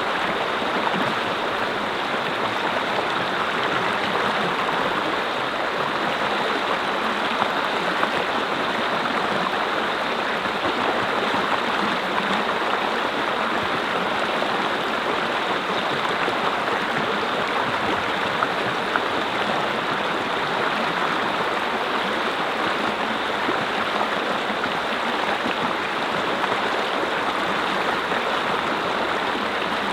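Mountain brook flowing steadily over rocks, a constant rushing and babbling of water.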